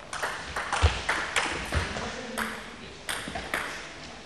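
Table tennis rally: a quick, irregular run of sharp clicks, about a dozen, as the celluloid ball is struck by the bats and bounces on the table, with a couple of dull thumps around the first two seconds.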